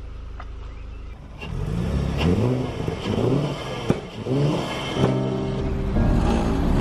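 Car engine blipped through a series of quick revs, the pitch rising and falling with each blip.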